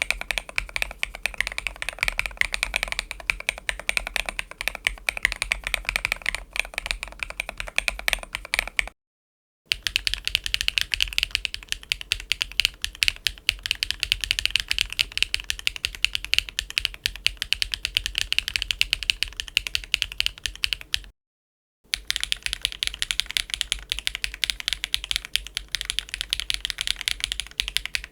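Steady typing on mechanical keyboards fitted with HMX Ash linear switches: fast, irregular strings of key clacks. The sound cuts out briefly about nine seconds in and again about twenty-one seconds in, splitting it into three takes. The first take sounds deeper and the other two brighter.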